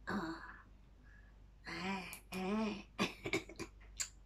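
A woman's wordless vocal sounds: a short exclamation, then two drawn-out voiced sounds with rising and falling pitch, then a few short sharp sounds near the end.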